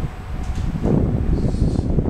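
A passing train running through the station without stopping, its rumble building sharply about a second in, with a short high hiss.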